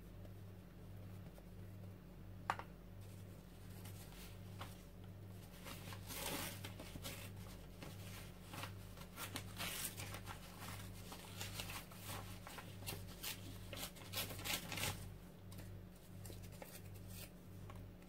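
Torn book-page paper scraps being handled: a run of faint rustling, scratching and tearing strokes, busiest from about four seconds to fifteen seconds in, with one sharp tap about two and a half seconds in, over a steady low hum.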